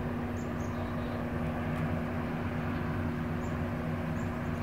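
Steady mechanical hum with a few constant low tones.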